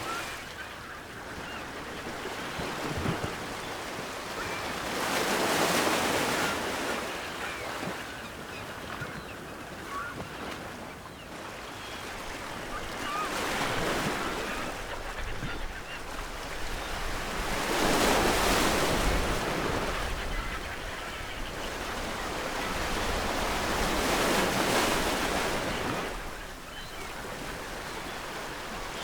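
Ocean waves breaking on a shore, the surf swelling and ebbing in slow surges every several seconds, with faint seagull calls now and then in the distance.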